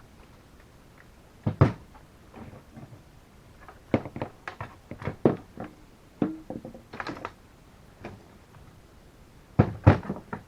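Scattered knocks and clatters of tools and drill parts being handled, with the sharpest knocks about a second and a half in and again near the end.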